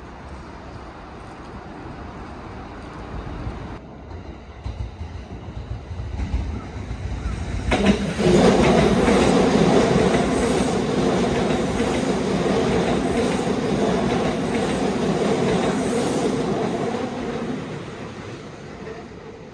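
Kintetsu electric train passing at speed: a low rumble builds as it approaches, then about eight seconds in it comes loud, with the wheels clattering rhythmically over rail joints, and it fades away near the end.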